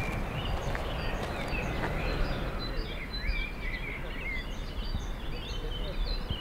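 Songbirds singing in a park woodland, many short chirps and slurred whistles overlapping, busier in the second half, over a steady rough rushing noise.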